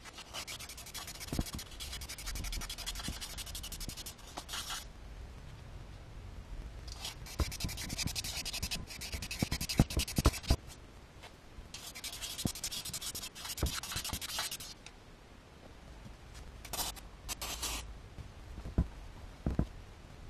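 Fine 600-grit abrasive paper rubbed by hand inside the cylinder bores of a four-cylinder motorcycle engine block, in three long spells of quick back-and-forth strokes and a short one near the end. It is a cross-hatch pass at 45° that only dulls the edges of scratches in the bore walls. A few light knocks sound as the block is handled.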